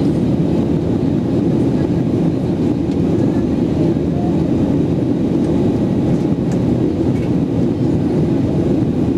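Steady cabin noise inside a Boeing 737 airliner in flight: the jet engines and the airflow over the fuselage make an even, unbroken low drone.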